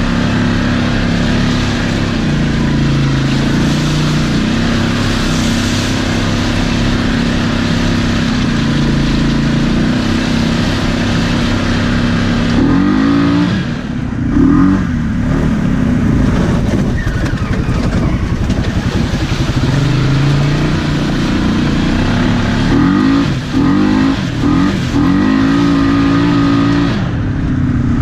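Polaris ACE 570 UTV engine running under steady throttle, then revving up and down several times in the second half as it pulls through rough ground.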